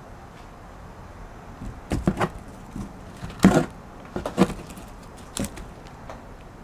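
A run of irregular knocks and thumps, seven or so strikes spread over a few seconds, the loudest a longer thud near the middle.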